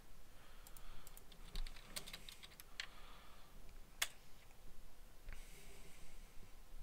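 Typing on a computer keyboard: a quick run of key clicks over the first three seconds, then a single louder click about four seconds in.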